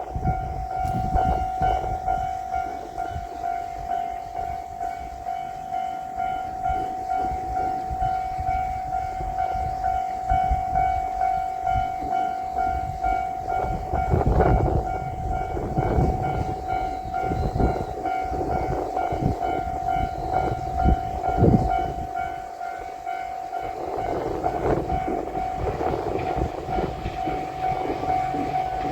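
Japanese level-crossing warning bell ringing in a steady, rapid repeating clang. A JR Shikoku 2700 series diesel limited express train passes through, adding engine rumble and wheel clatter over the rail joints, strongest in the second half.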